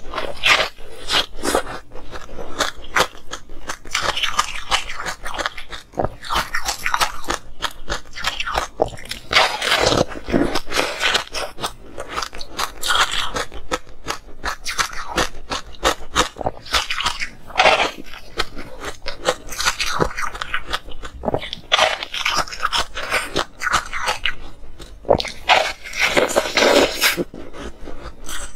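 Ice being bitten and chewed, close to the microphone: dense cracking and crunching, with a louder bite every few seconds.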